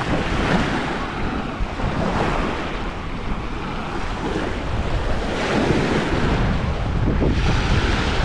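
Waves washing onto a sandy beach, with wind buffeting the microphone in a steady low rumble and the wash swelling now and then.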